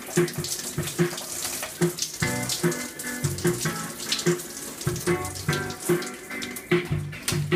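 Water from a handheld shower head spraying and splashing over a hanging waterproof Bluetooth speaker, a steady hiss. Music with a regular beat keeps playing from the speaker underneath the spray.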